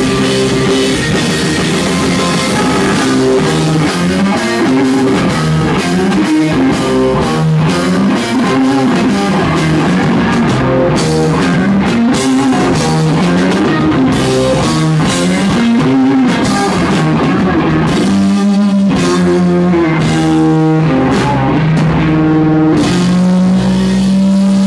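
Live rock band playing: a busy drum kit under a guitar riff that winds up and down, settling on one held note near the end.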